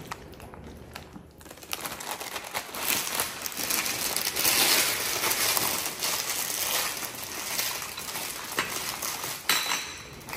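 Plastic snack packet crinkling and crackling as it is handled, starting about a second and a half in and loudest around the middle.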